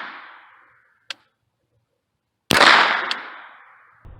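A .22 LR shot from an AR-15 pistol with a .22 conversion kit, fired about two and a half seconds in and ringing out over about a second and a half. The tail of the previous shot fades at the start, and a short sharp click is heard about a second in.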